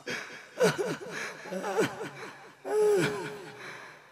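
Wordless vocal cries from performers: several short calls that fall in pitch, then a louder drawn-out cry about three seconds in.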